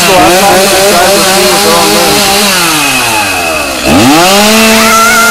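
Gas chainsaw engine revving with no cut being made: held at high revs, winding down toward idle from about halfway in, then snapping back to full throttle about four seconds in.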